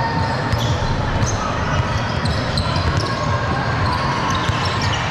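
Basketball being dribbled on a gym court during a game, with short high squeaks over a steady background of many voices.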